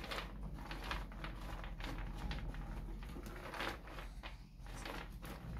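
Raw red-skinned peanuts being spread by hand across a metal baking tin: a soft, irregular rattle of many small clicks as the nuts roll against each other and the tray.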